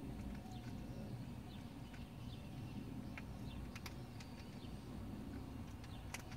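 Faint, sharp metallic clicks from the ignition lock cylinder and key being worked against the steering-column housing flange as they fail to seat, a few around the middle and one near the end. Under them is a steady low rumble and faint bird chirps in the background.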